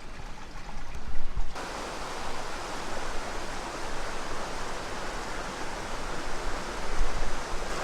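Flowing river water, a steady rushing hiss that comes in abruptly about a second and a half in, after a muffled stretch with a brief bump.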